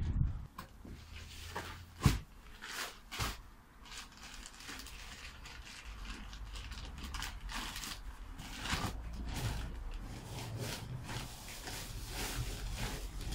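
Gloved hands scraping and crunching through soil and stony rubble in a fence-post hole, with a sharp knock about two seconds in.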